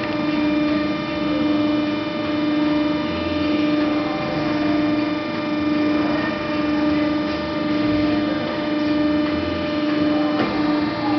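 Haco TSX hydraulic guillotine shear idling between cuts: its pump motor runs with a steady hum. The hum swells and eases slowly, about every one and a half seconds.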